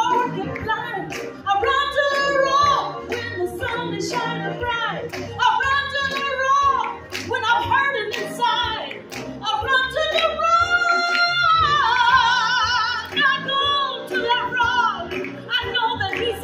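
A woman singing a worship song solo into a handheld microphone, with long held notes and a wavering vibrato about twelve seconds in.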